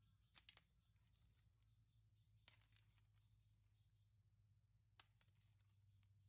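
Near silence: a faint steady low hum, broken by a few faint sharp clicks about half a second in, at about two and a half seconds and at five seconds.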